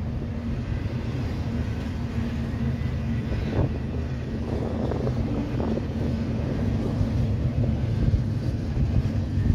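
Double-stack intermodal freight cars rolling past: a steady low rumble of steel wheels on rail, with a little rattling in the middle.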